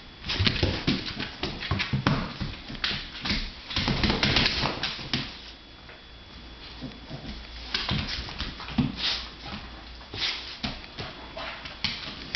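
Pit bull-type dog vocalizing in irregular bursts of whining and grumbling, with sharper clicks mixed in. The sounds are busiest over the first five seconds, ease off briefly, then start again about eight seconds in.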